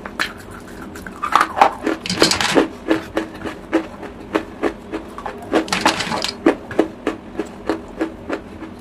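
Close-miked crunching of chalk being chewed: sharp crunches about two to three a second, with two longer gritty crunches, about two seconds in and again near six seconds.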